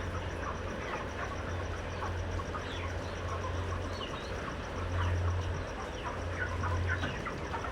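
A large flock of five-week-old broiler chickens calling, many short overlapping chirps and clucks, over a steady low hum.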